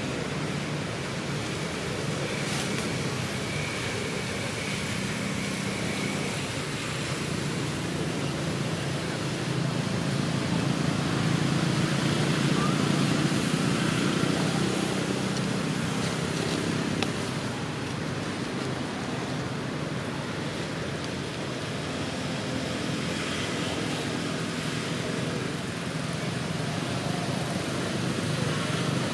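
Steady outdoor background noise: a broad hiss over a low hum, a little louder around the middle.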